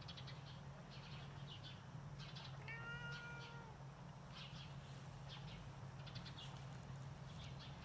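A cat meows once, one held call lasting about a second, about three seconds in. A steady low hum and scattered faint clicks lie under it.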